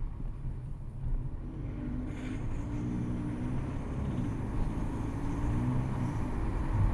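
Audi A3 1.6 TDI four-cylinder diesel engine running at low revs with a steady low rumble; a wavering pitched hum joins about two seconds in. The owner reports a rattle from it at low revs with the engine cold.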